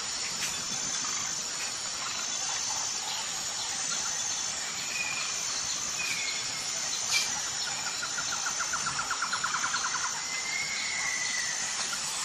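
Forest bird ambience: a fast rattling trill about eight seconds in, a few short whistled notes, and a longer slurred whistle near the end, over a steady high-pitched drone. One sharp click about seven seconds in.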